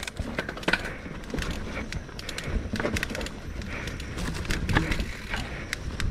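Giant Trance X 29 mountain bike riding down a dirt trail: tyres rumbling steadily over the ground, with irregular rattles and clicks from the bike over rough terrain.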